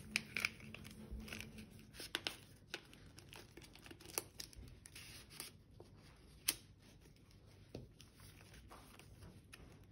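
Paper handled and crinkled as a rolled paper sword's green grip is wrapped and pressed, with scattered sharp crackles and taps that thin out after about two and a half seconds.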